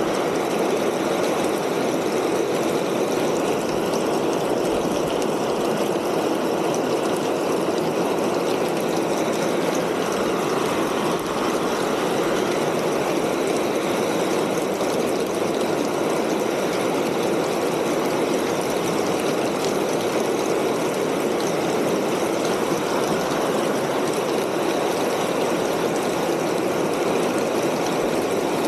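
Rain falling steadily on a tin roof: a dense, even patter of drops on the metal that neither swells nor lets up.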